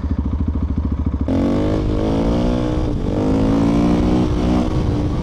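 Single-cylinder dual-sport motorcycle engine ticking over with an even beat. About a second in, it gives way to the bike running under way with a rush of wind on the microphone, its pitch dipping and rising twice as the throttle is eased and opened.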